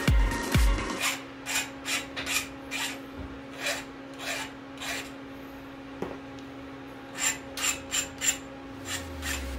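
Repeated rubbing and scraping strokes against the bottom bracket shell of a carbon mountain bike frame as it is cleaned out, about two or three strokes a second. There is a pause partway through, then a quicker run of strokes.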